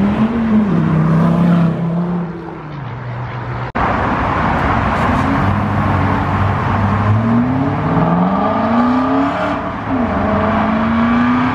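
Car engines under hard acceleration. First an engine note eases lower over a few seconds. After an abrupt cut, an Aston Martin Vantage roadster pulls away with its engine note climbing in repeated rising sweeps as it shifts up through the gears.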